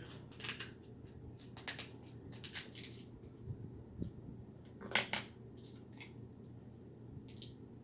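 Snow crab leg shell being cracked and pried open: a scattered series of sharp cracks and snaps, the loudest about five seconds in.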